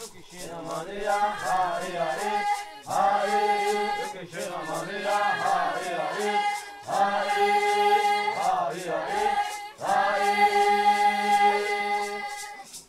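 Chanted group singing, long held notes alternating with wavering melodic lines, over a rattle shaken in a steady beat.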